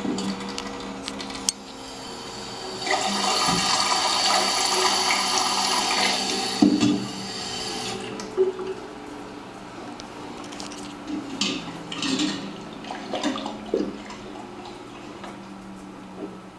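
Water rushing loudly for about five seconds, then stopping abruptly, over a steady low hum; a few light knocks and clicks follow.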